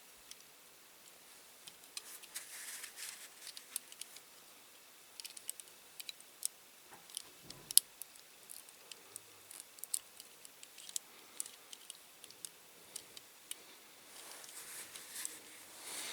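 Scattered small clicks and light taps, with a few brief soft scrapes, from small diecast toy car parts being handled and fitted together.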